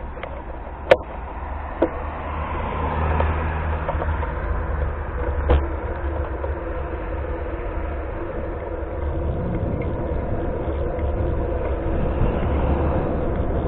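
Steady low rumble and wind noise of a camera travelling along a paved road, with a few sharp clicks about one, two and five and a half seconds in.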